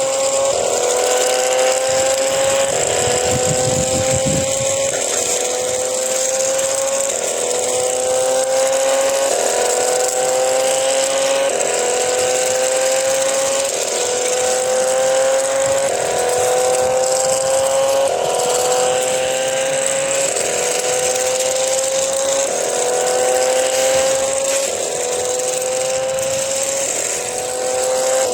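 Electronic siren-like sound effect from a toy robot RC car: a short rising tone that repeats evenly about every second and a half, over a steady high hiss.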